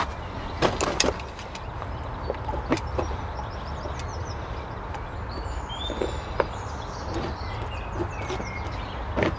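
Small birds chirping and twittering throughout, with a scattering of sharp knocks and clicks from handling materials, the loudest in the first three seconds.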